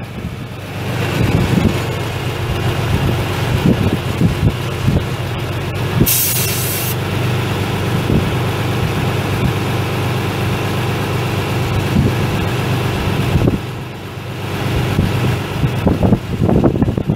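John Deere 3010's six-cylinder propane engine running steadily, with a brief loud hiss about six seconds in and some irregular knocks near the end.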